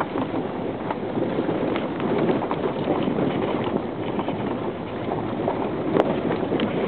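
Vehicle driving on a rough dirt road, heard from inside the cabin: a steady rush of road and engine noise with frequent small knocks and rattles from the bumpy ride, and a sharp click about six seconds in.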